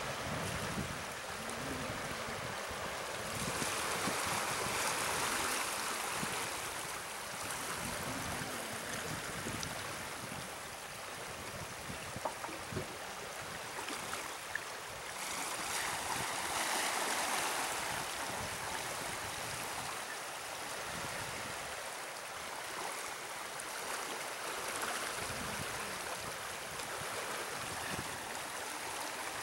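Steady rush of aqueduct water churning out below a concrete check structure's gates; it swells twice, about four seconds in and again around sixteen seconds, and eases between.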